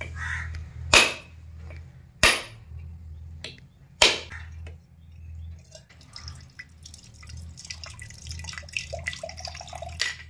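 Three sharp blows of a heavy curved knife striking a husked coconut in the first four seconds, cracking its shell. Then coconut water trickles and drips into a small steel vessel.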